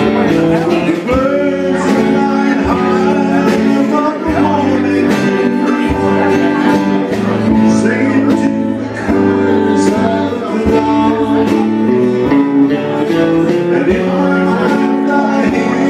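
Live country band playing a steady-tempo song on electric and acoustic guitars, electric bass and a drum kit.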